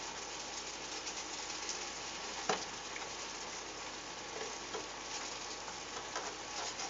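Asparagus in garlic sauce sizzling steadily in a stainless-steel skillet as the sauce thickens, with a few light knocks and scrapes of a plastic spatula against the pan. The loudest knock comes about two and a half seconds in.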